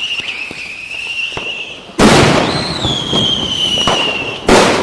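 Diwali firecrackers and fireworks going off: a high whistle slowly sinking in pitch, then a loud bang about two seconds in with crackling and another falling whistle, and a second sharp bang near the end.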